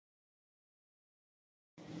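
Dead silence, then a low steady hum of room noise cuts in suddenly just before the end.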